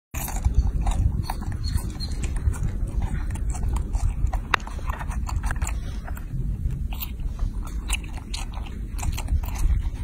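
Baby macaque biting and chewing peeled longan fruit close to the microphone: many short wet clicks and smacks, several a second, over a steady low rumble.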